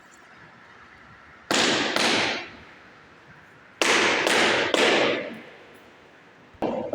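Tile being tapped down into its bed: five sharp knocks, two and then three more about two seconds later, each ringing out briefly.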